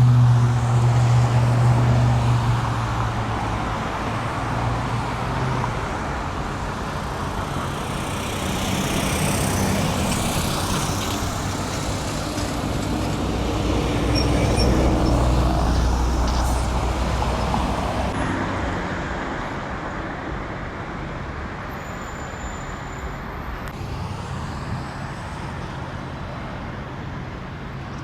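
Road traffic passing, engine hum and tyre noise, with a heavy vehicle's engine loudest in the first few seconds before fading.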